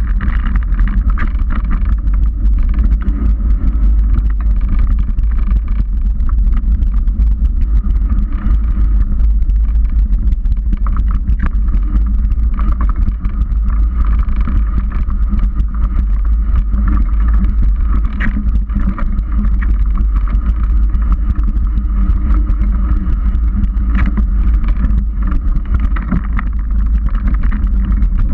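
Loud, steady wind buffeting and rumble on a bike-mounted GoPro as a 29er mountain bike rolls along a dirt trail, its tyres and frame rattling, with many small clicks over the ground.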